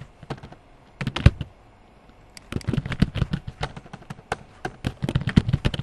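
Keystrokes on a computer keyboard, typed in quick runs of sharp clicks: a short run at the start, another about a second in, then a long run from about two and a half seconds in until nearly the end.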